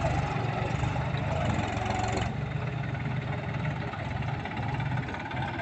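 Massey Ferguson 241 tractor's diesel engine running steadily under load as the tractor drives through thick mud on cage wheels.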